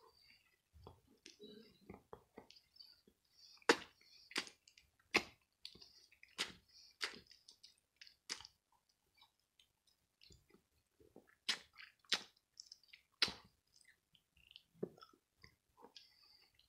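Close-up chewing of a peanut butter, ham and cheese sandwich on soft bread, with sharp wet mouth smacks. There is a run of about seven smacks from about four seconds in, then after a pause a few more near the two-thirds mark.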